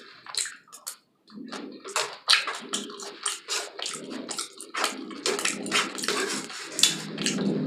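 Close-miked chewing of crunchy tortilla chips: a quick run of sharp crunches over wet chewing sounds.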